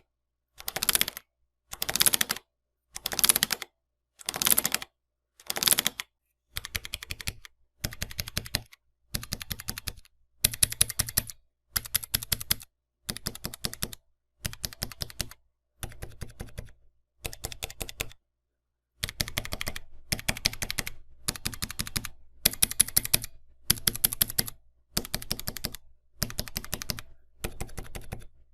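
Typing on a mechanical keyboard with Cherry MX switches, in rapid bursts of keystrokes about a second long with short pauses between. About six seconds in the clicks change character, with a deeper bottom-out thud under them, as a different switch type is typed on.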